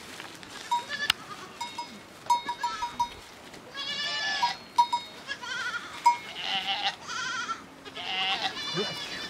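A herd of goats bleating, several overlapping wavering calls coming mostly in the second half, with scattered light clicks.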